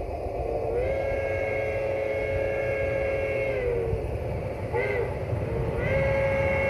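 Chime whistle of a garden-scale geared steam locomotive blowing several notes at once: a long blast, a short toot just under five seconds in, then another long blast about a second later. This finishes the long-long-short-long crossing signal, and each blast bends up in pitch as it starts and sags as it stops. A steady low rumble runs underneath.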